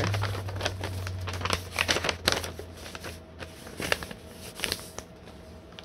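Sheets of printed paper rustling and crinkling as they are handled and unfolded, in a run of short crackles that is busiest in the middle.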